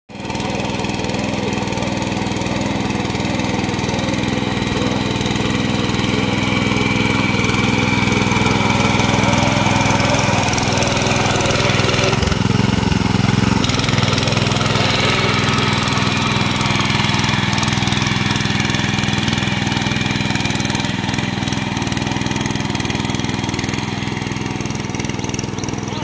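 Small single-cylinder engine of a walk-behind power weeder running steadily under load as its rotary tines churn through flooded paddy mud.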